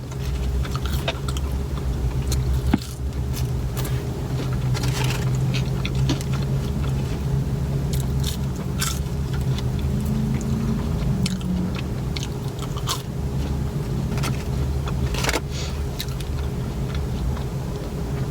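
Close-up chewing and biting of fast food, with scattered short crunches and clicks, over a steady low hum inside a car.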